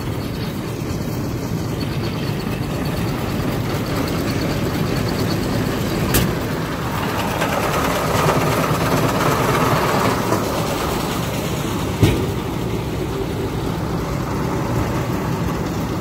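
Tractor engine running steadily while pulling a Krone KR 125 round baler through a hay windrow, the noise swelling in the middle. Two sharp knocks, about six seconds in and about twelve seconds in.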